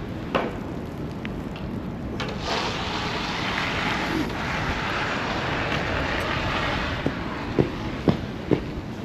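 Snowy city street ambience: a vehicle passes, its tyres hissing through slush as it swells and fades over a few seconds, over a steady low rumble of traffic and wind. A few short sharp knocks come near the end.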